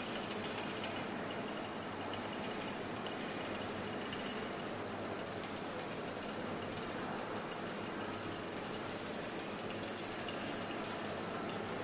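Magnetic stirrer running under a glass beaker, giving a steady fast mechanical rattle.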